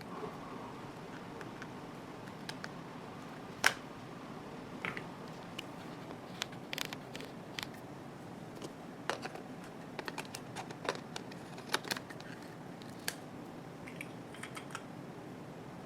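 Irregular small clicks and taps of a camera and its parts being handled, spaced unevenly with the sharpest click about four seconds in, over a steady hiss.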